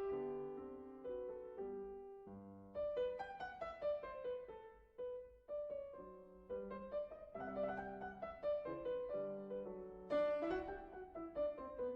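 Background music: a classical piano sonata movement, with quick runs of single notes over a moving accompaniment.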